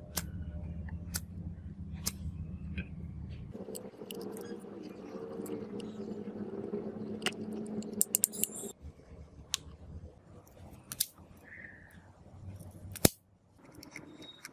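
Hands fitting a small plastic rocker switch into a panel hole and handling its wires: scattered small clicks and rustles over a low background hum, with a quick cluster of clicks about eight seconds in and one sharp, loudest click about thirteen seconds in.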